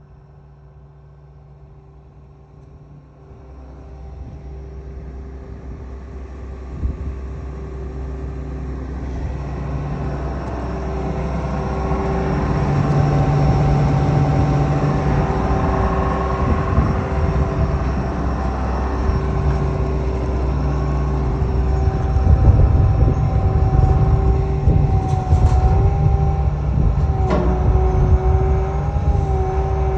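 John Deere 690E LC excavator's diesel engine running with a steady whine, growing louder over the first dozen seconds. Near the end a tone in the whine wavers as the boom and bucket are worked hydraulically, with a sharp click about 27 seconds in.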